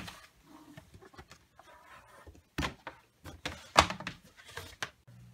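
A folding cardboard game board being unfolded and laid flat on a countertop: a series of thumps and knocks with rustling in between, the loudest about four seconds in.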